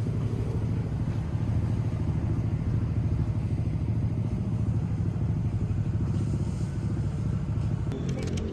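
A motor vehicle's engine running steadily, a low rumble with a fast even pulse.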